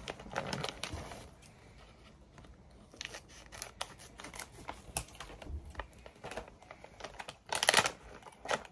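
Scissors snipping through a plastic-foil dog-treat bag, with the packaging crinkling in the hands, and a louder burst of rustling near the end.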